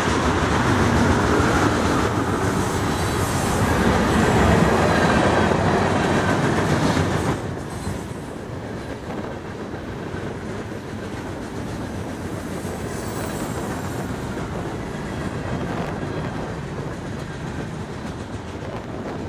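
A long freight train's cars rolling past close by, mostly lumber-loaded centerbeam flatcars with some tank cars and boxcars, steel wheels rumbling and clattering on the rails. The noise drops noticeably about seven seconds in and stays steady at the lower level.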